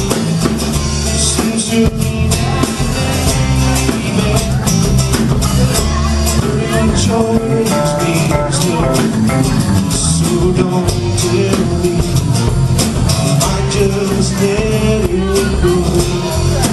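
Live music: a cutaway acoustic guitar strummed steadily, heard through the venue's sound system.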